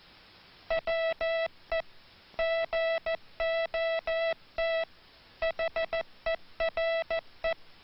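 Morse code sent as a single steady beep tone in short dits and longer dahs. Tight gaps fall within letters, longer ones between letters, and two still longer pauses split it into three words, which spell WE GOT HERE.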